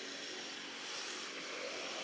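Steady outdoor background noise, an even hiss with no distinct call or knock.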